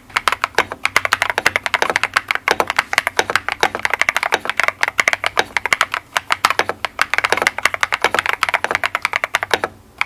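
Fast typing on an Epomaker RT100 mechanical keyboard fitted with Wisteria switches: a quick, continuous run of keystrokes, with a brief pause near the end.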